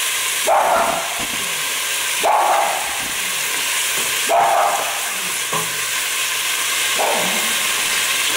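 Diced chicken frying in oil in a pot, sizzling steadily, while a spatula stirs and turns the pieces, scraping the pot about every two seconds.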